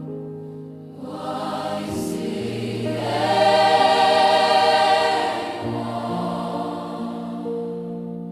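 Gospel worship music: a choir of voices holding long sustained chords over a soft sustained backing, swelling to its loudest about three to five seconds in, then easing back.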